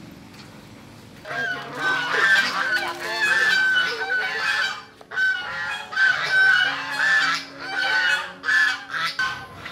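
A flock of domestic geese honking: a dense run of loud, repeated honks that starts about a second in and goes on in quick overlapping calls.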